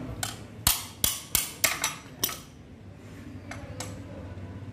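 A metal hand tool knocking against metal parts of a dismantled Gypsy King engine: about seven sharp metallic clinks with a short ring in quick succession over the first two seconds, then two fainter taps later.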